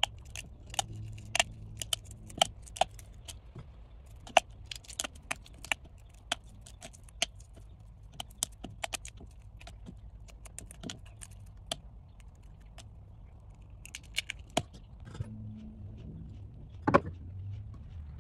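Hard-boiled egg being peeled by hand: an irregular scatter of small, sharp cracks and ticks as the shell breaks and flakes fall into a plastic cup, with one louder knock near the end.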